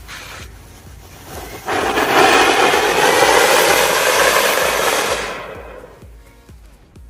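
A lit firework hissing loudly as it sprays for about four seconds, starting suddenly and then dying away.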